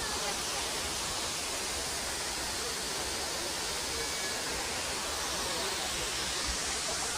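Waterfall: a steady rush of falling water, even and unbroken throughout.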